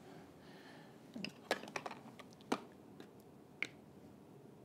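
A few sharp, light clicks and taps of small telescope camera adapters and caps being picked up and set down on a tabletop.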